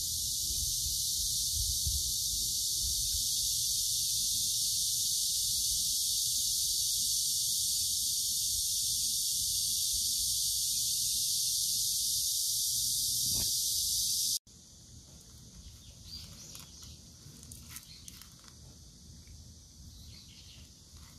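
A steady, high-pitched summer chorus of cicadas, with a low rumble underneath. It cuts off abruptly about two-thirds of the way in, and quieter small crunching clicks of cats eating dry kibble follow.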